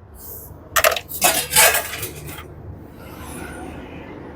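Sharp metallic clicks and clatter from handling a screwdriver and screws on an appliance panel: one short burst about a second in, then a longer run of clatter that stops about two and a half seconds in.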